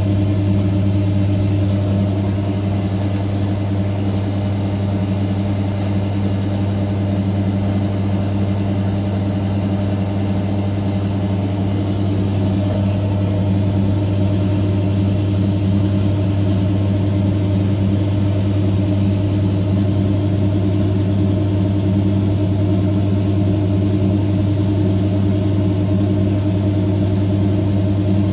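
Electric diesel transfer pump running with a steady low hum while it dispenses fuel.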